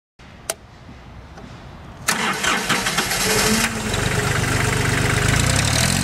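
Hinomoto E2004 compact tractor's diesel engine being started: a click, then about two seconds in the starter cranks briefly, and the engine catches and settles into a steady idle from about four seconds in.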